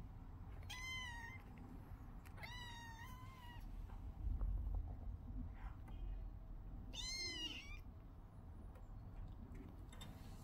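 Young black-and-white kitten meowing three times in a thin, high-pitched voice, the middle call the longest. A dull low bump comes about halfway through.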